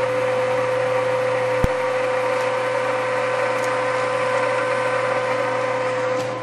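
Steady whine of a small electric blower drawing gas through a wood gasifier during start-up, with one strong constant tone over a low hum. There is a single sharp tick about a second and a half in, and the sound drops a little near the end.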